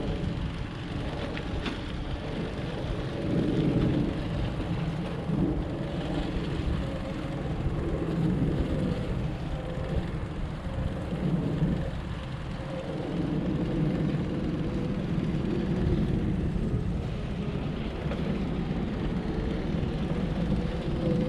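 Steady low rumble of distant vehicle traffic, with a faint humming tone that rises slightly near the end.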